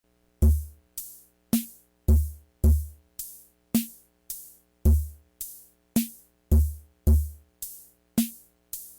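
Drum-machine beat playing alone: a steady pattern of kick-drum and snare hits, a little under two hits a second, each with a crisp bright top.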